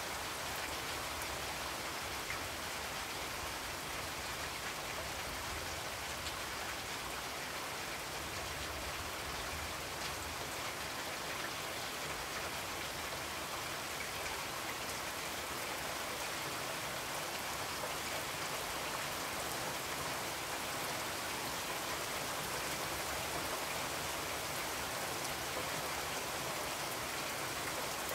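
Steady, even rain-like hiss that holds unchanged throughout, with no other distinct sounds.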